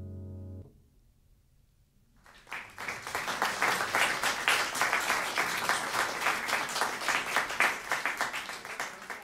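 A held final chord cuts off, and about two seconds later a small audience starts applauding; the clapping is steady and tails off near the end.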